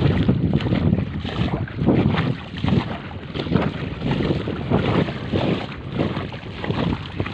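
Wind buffeting the microphone in uneven gusts, a rumbling rush that rises and falls.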